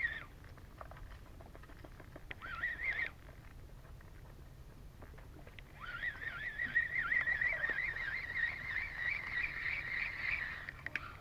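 Spinning reel being cranked to retrieve a lure, its gears giving a wavering whine: two short turns of the handle, then a long steady retrieve from about halfway through.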